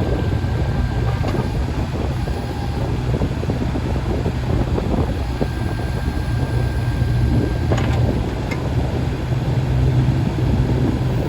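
Kubota KX016-4 mini excavator's three-cylinder diesel engine running steadily, with a sharp click about eight seconds in.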